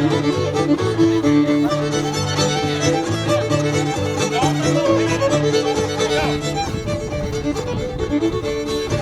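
Fiddle-led dance tune playing, with held melody notes over a steady low bass line.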